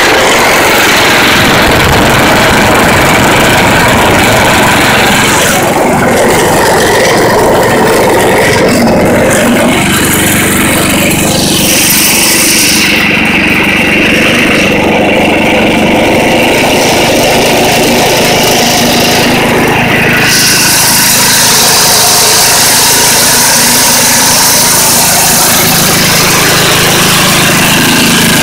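Old Ariens snow blower's small Tecumseh engine running steadily, loud and close.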